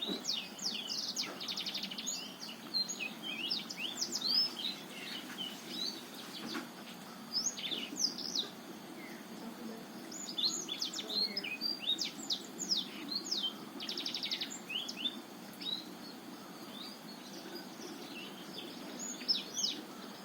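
Black-throated canary (blackthroat) singing a fast, varied song of chirps, slurred whistles and short buzzy trills, in bursts broken by brief pauses.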